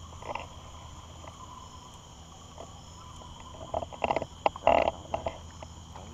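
Steady night chorus of insects and frogs, with a cluster of short, louder noises and a few sharp clicks about four to five seconds in as a small fish is reeled in on a spinning rod.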